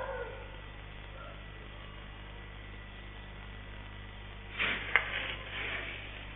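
Steady electrical hum; about four and a half seconds in, a short noisy rustle with one sharp click.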